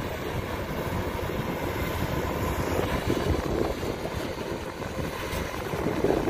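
Kubota DC105X combine harvester running steadily while working a rice field: a continuous machine noise from its diesel engine and threshing gear.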